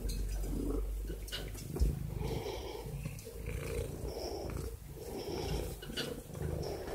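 Domestic cat purring close up, in slow rhythmic waves.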